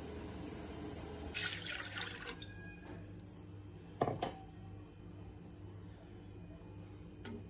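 A steady hiss for about a second, then water splashing into a pot, and a single sharp plop about four seconds in as something drops into the water.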